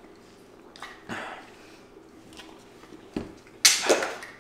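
Slushy Slurpee drinks being sucked through straws, with plastic cups being handled. Near the end a loud, harsh plastic crackle as a domed lid is pried off a cup.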